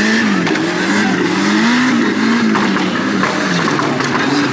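An off-road race buggy's engine is revving up and down over and over, its pitch rising and falling about once a second as it works through the mud.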